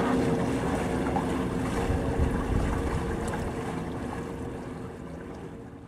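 Boat running across open water: the rush of wash and wind buffeting the microphone, with a steady low hum underneath. It fades out over the last couple of seconds.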